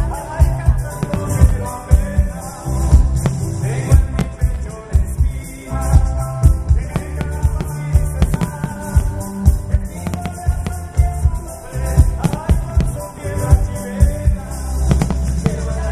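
Music with singing and a heavy, steady beat.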